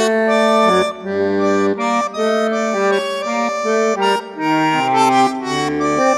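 Solo bandoneón playing an instrumental passage in a contemporary tango song: a melody of held notes over changing chords, with low bass notes underneath and brief breaks between phrases.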